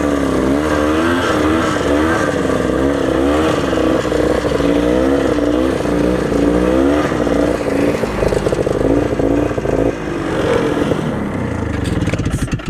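Two-stroke engine of a 34-year-old Ski-Doo snowmobile running under way, its pitch wavering up and down about once a second as the revs change. The engine sound drops away near the end.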